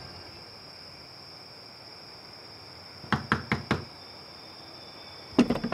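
Knuckles knocking on a wooden door: four quick raps about three seconds in, then a louder clatter of knocks near the end.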